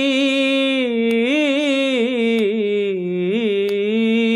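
A man holding one long sung note, stretching out the last syllable of a line, its pitch wavering and bending in ornaments.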